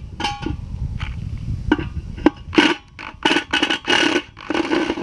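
Cordless impact driver run in several short bursts on the screws of a hot plate's metal pan, the bursts getting longer toward the end. It is hammering at screws that are fastened very tight.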